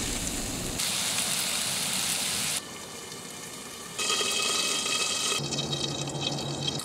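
Burgers, hot dogs and bacon sizzling in a cast-iron skillet heated by a parabolic solar cooker. The sizzling comes in several short clips, its level dropping and jumping abruptly between them.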